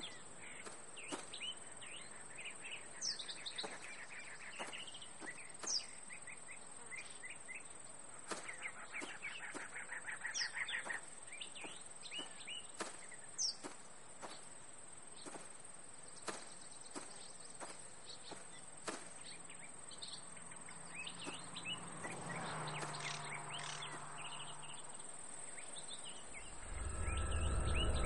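Small birds chirping and twittering over a steady, faint high-pitched hiss. A loud low hum swells in near the end.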